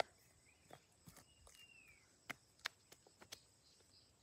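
Near-quiet outdoor air with a single short bird whistle that glides downward about one and a half seconds in, and a few soft clicks and taps from handling a small plastic skincare bottle.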